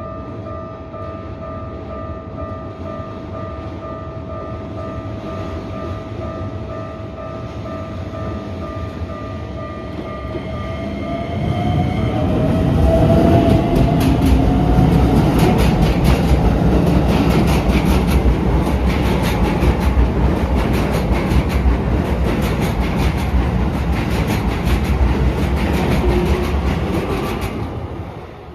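Keikyu 2100 series electric train passing through a level crossing while the crossing's warning bell sounds. The train rumbles closer, then goes by loudly for about fifteen seconds with a rapid clatter of wheels over the rails and a rising whine as it arrives. The sound falls away sharply near the end as the last car clears.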